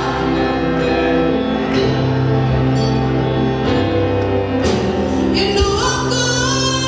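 Gospel music with singing: sustained chords over a steady bass line, and a voice line rising in pitch about five seconds in.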